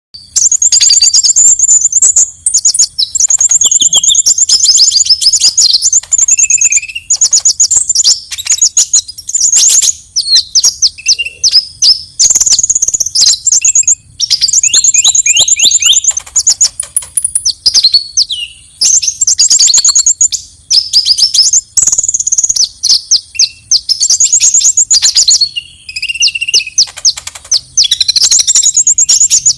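Konin (kolibri ninja) sunbird giving its fighting song: loud, rapid, high-pitched trills and chattering phrases, each about a second or two long, repeated with short gaps.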